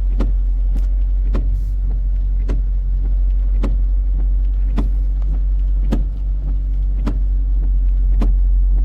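Car engine hum heard from inside the vehicle, with the indicator flasher ticking steadily about twice a second.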